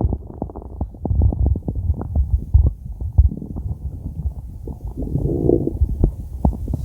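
A person's stomach growling: low rumbling with many short gurgles and pops, and a higher, wavering growl about five seconds in.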